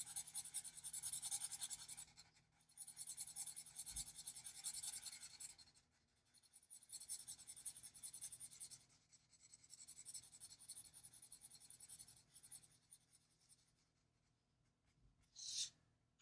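Faint scratching of an Ohuhu alcohol marker's tip across paper in rapid short strokes, in several runs with brief pauses, dying away a few seconds before the end.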